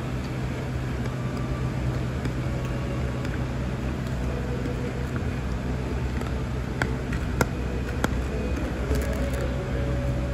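Steady low hum of café background noise, with a few light clicks about seven and eight seconds in.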